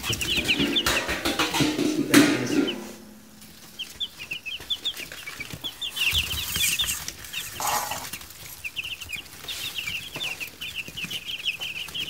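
A brood of week-old meat-bird chicks peeping constantly: many short, high, falling peeps overlapping. About two seconds in there is rustling and a sharp knock.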